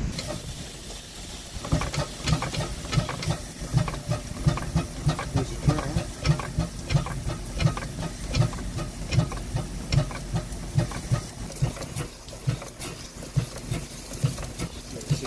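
Merryweather steam fire pump's small steam engine running slowly, with a steady beat about two to three times a second over a hiss of steam; the beat starts about two seconds in. It is running light to warm up, its pump not yet fed with water.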